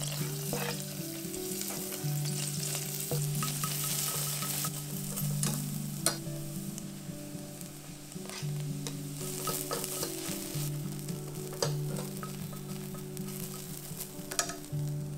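Carrot and dried daikon strips sizzling in hot sesame oil in a stainless steel saucepan as they are slid in from a wooden board and stirred with wooden chopsticks. A few sharp clicks of chopsticks or board against the pan, the loudest about six seconds in.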